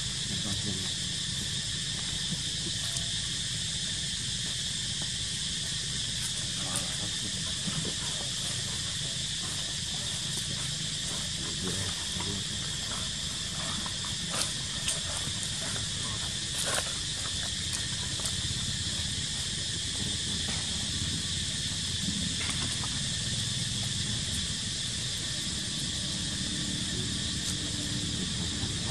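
Steady insect chorus, a constant high buzz, with a few faint clicks and rustles about halfway through.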